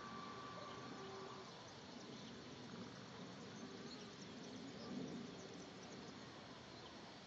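Faint, steady high whine of a small electric RC catamaran's motor out on the water, stopping about a second and a half in; after that only faint outdoor background noise with a few high ticks.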